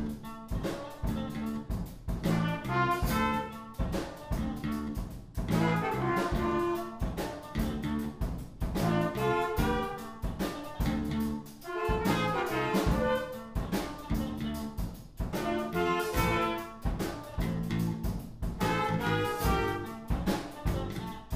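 Youth band playing a blues: two trumpets and a saxophone play the melody together over an acoustic bass guitar line and a drum kit beat, in phrases that repeat every few seconds.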